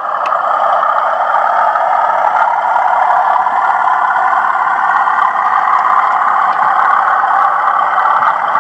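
TTS sound decoder in a Hornby OO gauge Class 37 model locomotive playing its simulated Class 37 diesel engine sound in 'thrash' mode through the model's small speaker. The sound is loud and steady, with little bass.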